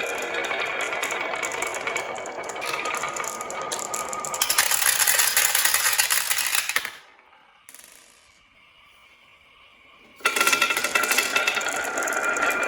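Marbles rolling and clattering down a marble run track: a dense rattle of quick clicks with a rolling hum, getting louder about four seconds in. It stops suddenly about seven seconds in and starts again loudly a little past ten seconds.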